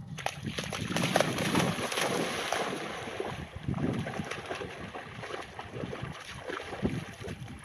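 German shepherd running and splashing through shallow river water after a thrown stick, then wading with it. The splashing is loudest from about a second in and then eases off.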